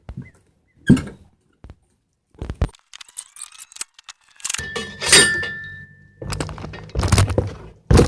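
Dock sections being handled and set in place: a series of knocks and thuds, with one clang that rings briefly about five seconds in.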